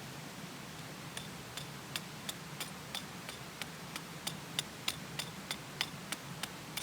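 Wood fire crackling: irregular sharp pops and snaps, a few a second, starting about a second in.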